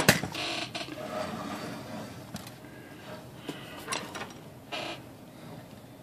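A 1920s Remington Remie Scout manual typewriter being turned over by hand: a sharp knock at the start, then scattered light clicks and clatter from its metal works.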